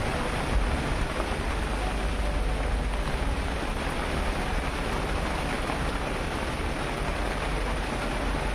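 Steady rain falling and pattering on roofs, an even hiss with a low rumble underneath.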